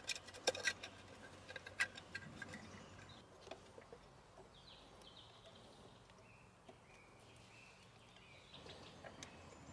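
Faint clicks and taps of pliers and a metal clamp being handled while a rubber suspension dust boot on a Citroën DS is fitted. There are several clicks in the first two seconds and one more a little later, then it is mostly quiet, with a few faint high chirps.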